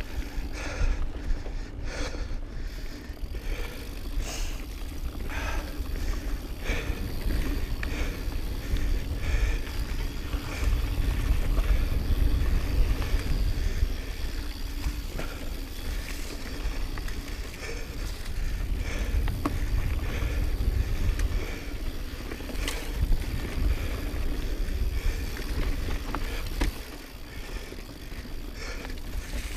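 Intense Recluse mountain bike riding down dirt singletrack: a steady low rumble of wind on the microphone and tyres on dirt, with scattered clicks and rattles from bumps in the trail.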